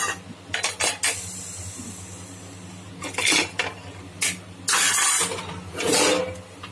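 Aluminium pressure cooker lid being twisted loose and lifted off: sharp metal clinks early on, then several loud scrapes of the lid against the cooker's rim.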